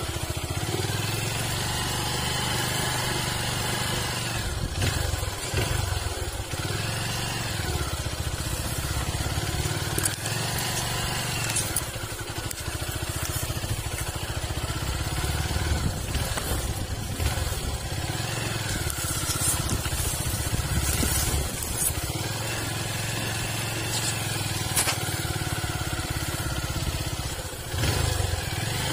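Motorcycle engine running at low speed over a rough dirt track, its revs rising and falling again and again, with a few short clicks and rattles.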